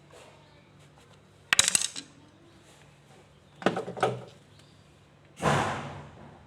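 Three bursts of clattering and knocking, as of hard objects being handled: a sharp rattle, then a rougher clatter, then a louder thud or scrape that fades over most of a second.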